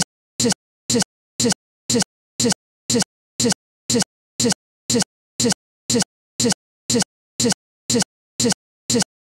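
A short fragment of sound repeating exactly twice a second, each repeat identical, with silence in between: a stuck, looping audio glitch in the recording.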